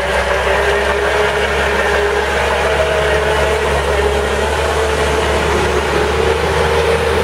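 Self-propelled flax puller running steadily as it pulls standing flax: a constant engine hum with a whine that wavers slightly in pitch.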